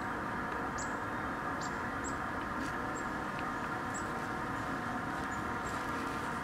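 Steady rushing hum from a house exhaust vent pipe blowing out steam. Short, high chirps of small birds sound over it about once or twice a second.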